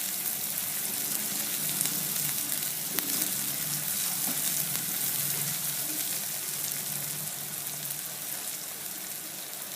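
Chopped onion and green chillies sizzling steadily as they fry in hot oil in a wok, with a few faint crackles.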